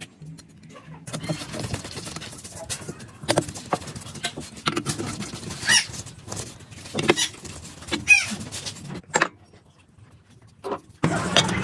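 Metal parts being handled in a workshop: irregular clicks and knocks with a few short squeaks. Near the end a steady low motor hum starts up.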